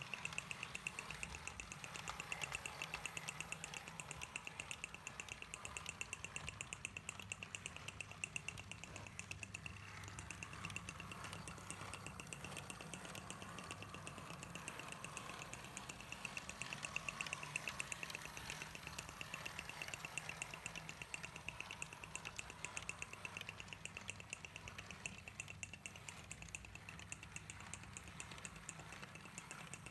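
Small electric model locomotive and its wagons running steadily round a circle of track: a faint motor-and-gear whir with a fast, even clicking.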